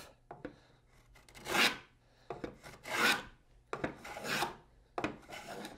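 Wooden moving fillister plane taking its final passes along a board edge to finish a rabbet: five short planing strokes about a second apart, the first one faint.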